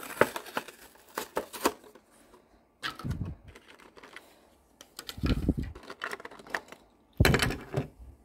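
A die-cast toy's blister pack and card backing being torn and pried open by hand: irregular plastic crackling and clicks, with a few dull knocks about three, five and seven seconds in.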